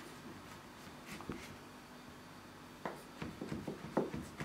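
Small knife slicing through a reblochon cheese and knocking on a wooden cutting board: a few faint taps about a second in, then a run of small quick knocks in the second half.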